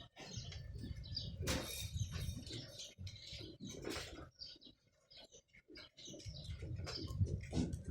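Small birds chirping in quick, overlapping calls, over a low rumbling noise.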